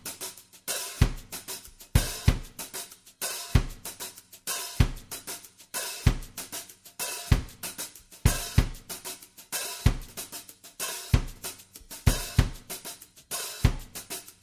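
Background music: a steady drum-kit beat, with bass drum and snare about every second and cymbals and hi-hat between them.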